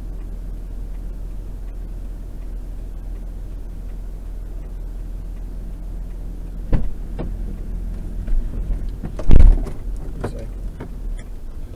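Vehicle running with a steady low rumble, broken in the second half by a few knocks and thumps, the loudest about nine seconds in.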